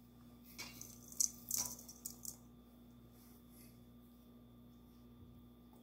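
A few light taps and a soft patter, about one to two seconds in, as chopped onion is tipped from a small glass bowl into a stainless steel mixing bowl of ground beef. After that only a faint steady hum is left.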